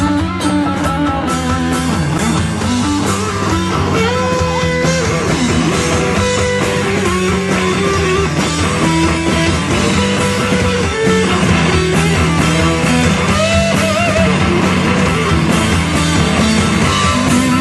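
Live rock band playing through a PA: electric guitars and drums with a driving beat.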